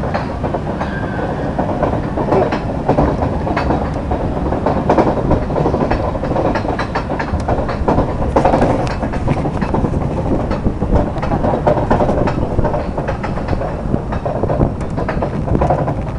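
Mine-train roller coaster climbing its lift hill: a steady rumble with continual clacking and clicking from the chain lift and ratchet under the train.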